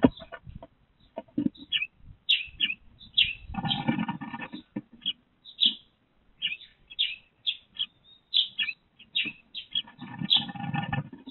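Eurasian tree sparrow chirping in many short, repeated calls at a wooden nest box. Two longer, louder bursts of scuffling come from inside the box, about a third of the way in and near the end.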